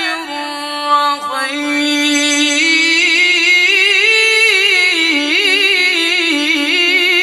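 A male Quran reciter's high, clear voice chanting one long unbroken phrase on a single breath, with quick ornamental turns that climb a little about midway and then ease back down.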